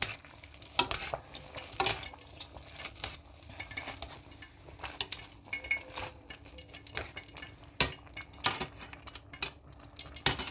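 Irregular light clinks and knocks of kitchen utensils, dishes and containers being handled on a worktop.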